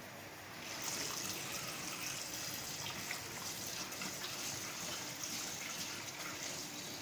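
Kitchen tap running into a stainless steel sink as a bowl is rinsed under the stream. The water gets louder about a second in, then runs steadily.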